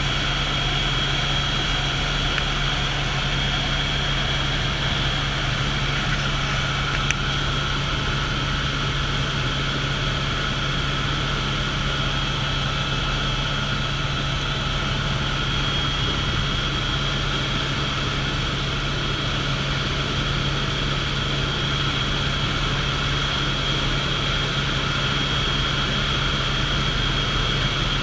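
Helicopter engine and rotor noise heard from inside the cabin: a steady, unchanging drone with a low hum and a thin high whine, and one short click about seven seconds in.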